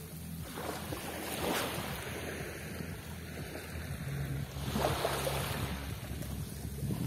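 Sea waves washing on the shore, surging a few times, with wind buffeting the microphone and a low steady hum underneath.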